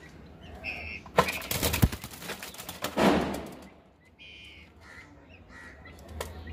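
Helmeted guinea fowl giving short, harsh calls several times. About a second in come sharp knocks and clatter, and about three seconds in a loud rustling burst.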